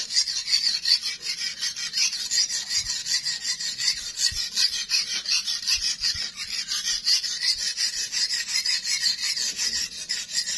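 Steel knife blade scraped back and forth on a whetstone in quick, even strokes, sharpening the edge of a blade freshly hardened by quenching in salt water.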